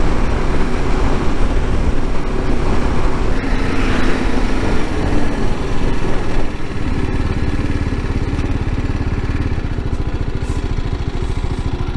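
BMW G310GS's single-cylinder engine running steadily as the motorcycle cruises along a road, with wind and road noise on the microphone. About halfway through, the sound changes abruptly to a slightly quieter, steadier engine note.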